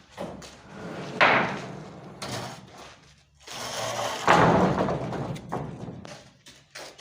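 Timber being handled during roof carpentry: two heavy wooden knocks about three seconds apart, each followed by a second or two of clattering, with lighter knocks around them.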